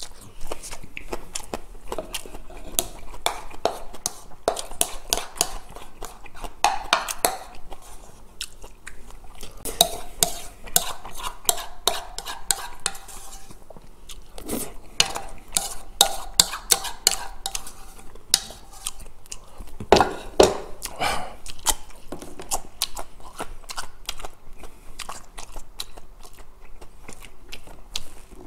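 Close-up eating sounds: chewing mouthfuls of rice mixed with soy-marinated crab, with a wooden spoon clicking and scraping against a plastic bowl as the last of the rice is scooped up.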